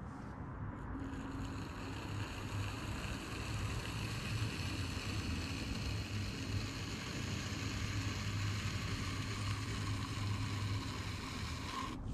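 Electric pottery wheel running with a low hum while a metal trimming tool scrapes the foot of a stoneware plate as it turns. A steady scraping hiss starts about a second in.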